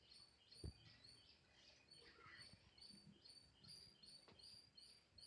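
Near silence, with faint, evenly repeating high chirps about three a second. A few soft knocks come from a spoon stirring thick semolina halwa in a nonstick pan, the clearest one a little under a second in.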